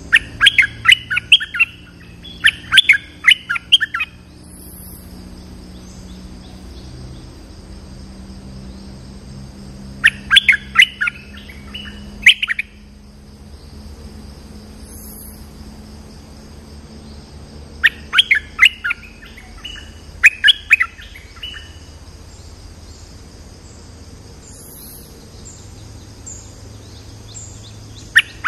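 Bulbul singing short phrases of rapid notes, repeated every eight seconds or so, over a steady high insect drone.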